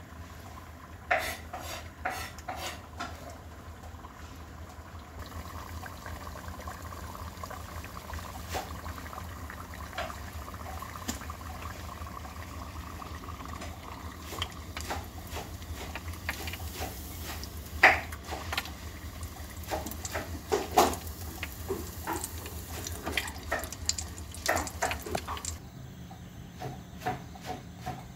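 Scattered clinks and knocks of cookware and utensils, thickest in the second half, over a steady low hum that stops near the end.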